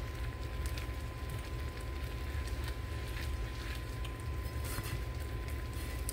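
Cut corn in water simmering toward a boil in a nonstick skillet, stirred with a silicone spatula: soft bubbling, crackling and squishing. Underneath runs a steady low hum.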